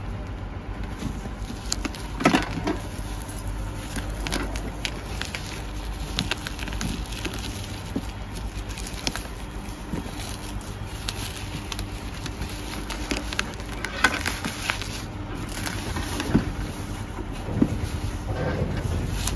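Bubble wrap and plastic packing being handled and pulled off a package, with irregular crinkling and crackling and a few louder knocks and bumps.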